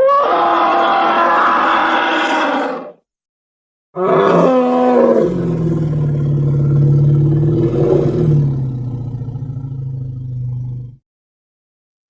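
Tyrannosaurus rex roar sound effects: a roar of about three seconds, then after a second's pause a longer roar of about seven seconds with a deep steady rumble under it, trailing off near the end.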